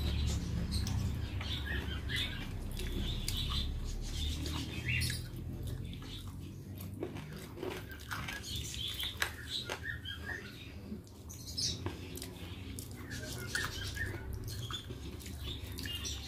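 Eating sounds: fingers mixing and squishing soft starchy rice on a metal plate, with chewing and many small wet mouth clicks, over a low steady hum.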